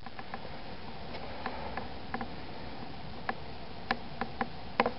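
Faint, sharp clicks and ticks, scattered and irregular with several near the end, over a steady background hiss.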